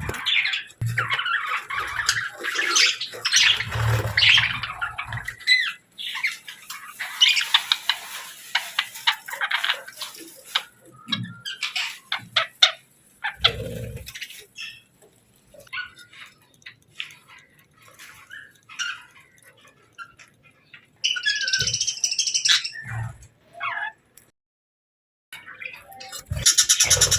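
Small birds chirping and squawking in a busy, irregular run of short calls, with a few low thumps among them. The calls stop for about a second near the end, then start again densely.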